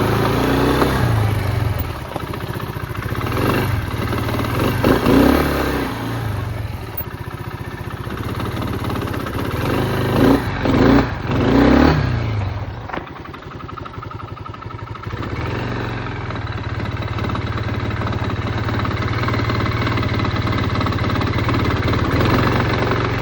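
Arctic Cat DVX 300 (Kymco Maxxer 300) quad engine idling and blipped several times, with a few short revs early on and three quick ones about halfway through, then settling back to a steady idle. The engine is being run to show a rattle.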